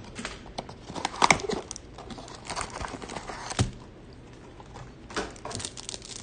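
Cardboard trading-card box and a cellophane-wrapped stack of cards handled on a desk mat: irregular rustling, light crinkling and small clicks, with two sharper knocks, about a second in and about three and a half seconds in.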